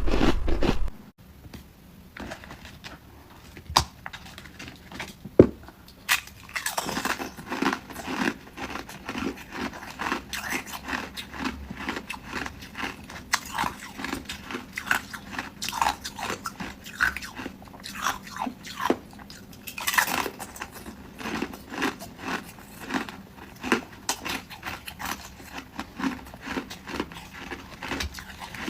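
A person biting and chewing ice close up: a few sharp cracks at first, then a dense, irregular run of crunching, with the loudest crack about two-thirds of the way through.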